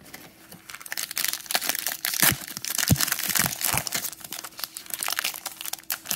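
Plastic cello-pack wrapper of Panini Mosaic trading cards crinkling and tearing as it is handled and torn open, a dense run of crackles starting about a second in, with a soft knock about three seconds in.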